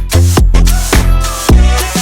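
Background electronic dance music with a heavy bass and a steady beat.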